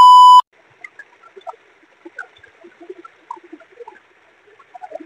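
A loud, steady electronic beep at about 1 kHz stops abruptly less than half a second in. After it comes the faint trickle of shallow running water, with many small drips and plinks scattered through it.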